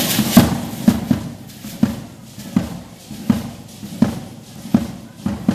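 A drum beating a steady dance pulse of about three beats every two seconds, with the dancers' gourd rattles shaking along.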